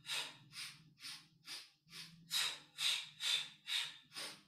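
A woman's short, sharp breaths in a steady rhythm of about two a second, sniffing in and blowing out in sets of four: the paced breath of the Pilates swimming exercise. The breaths grow louder about halfway through.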